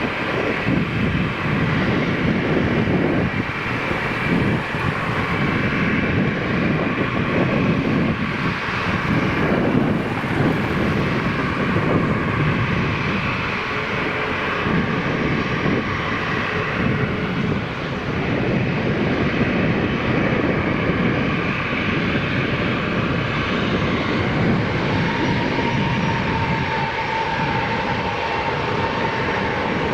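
Boeing 777 freighter's General Electric GE90 jet engines running at high power, a loud, steady, crackling rumble. A faint steady whine joins in near the end.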